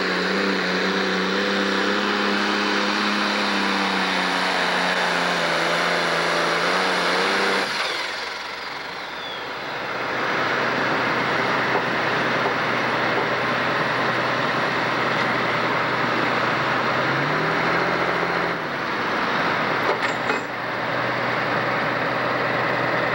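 Single-turbo diesel engine of a John Deere pro stock pulling tractor at full throttle dragging the weight sled, its pitch slowly sagging under the load. About eight seconds in it drops off as the pull ends, then runs on steadily at a lower speed, with a short rev about two-thirds of the way through.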